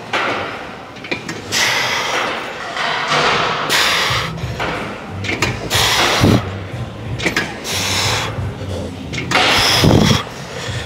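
Reps on a plate-loaded squat machine: a rushing sound rises and falls about seven times, every second and a half or so, over a low hum.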